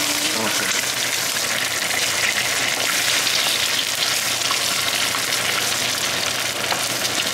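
Four eggs frying in a pan, a steady sizzle with small crackles, while a wooden spatula breaks them up and stirs them into scrambled eggs.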